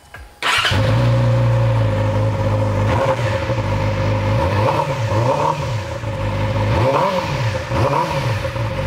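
Yamaha YZF-R6 inline-four sportbike engine running through a Toce Double Down slip-on exhaust. It starts about half a second in and idles, then is blipped on the throttle four times, each rev rising and falling back to idle.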